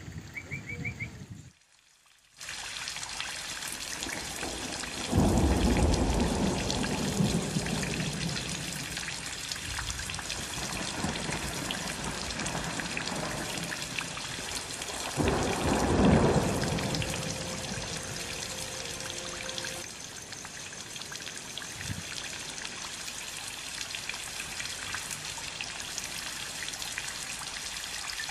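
Steady rain falling, an even hiss of drops, with two louder, deeper swells about five and fifteen seconds in.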